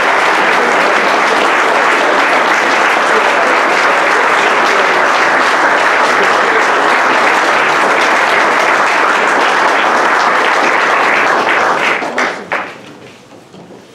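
Audience applauding loudly and steadily, dying away about twelve seconds in with a few last claps.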